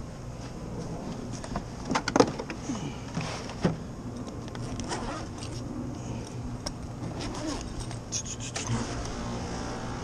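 Nylon tool bag being unzipped and rummaged through: rasping zipper strokes, fabric rustling and tools clicking and clattering, over a steady low hum.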